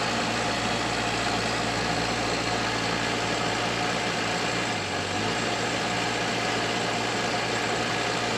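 Sherp all-terrain vehicle's engine running steadily under load as it pushes up a deep-snow slope, with a brief dip about five seconds in.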